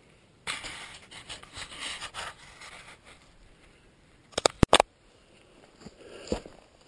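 Rustling and scraping of dry grass and clothing as a person moves over a rocky hillside, then a quick cluster of sharp, loud clicks about four and a half seconds in. A few knocks like footsteps on loose stones follow near the end.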